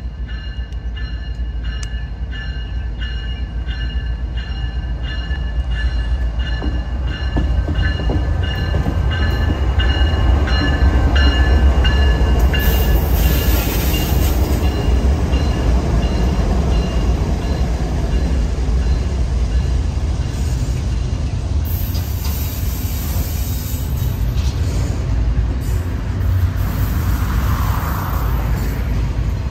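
CSX freight train rolling past close by: the diesel locomotives run with a heavy rumble as they go by, then double-stack container cars follow, their wheels rolling on the rails. A bell rings steadily in a repeating rhythm as the locomotives approach, and stops about halfway through as they pass.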